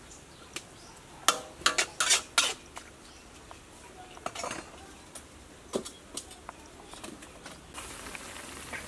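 Metal spatula scraping and clanking against a large metal wok while stir-frying amaranth and squid, with a faint sizzle underneath. Several sharp clanks come close together in the first few seconds, then sparser scrapes and knocks.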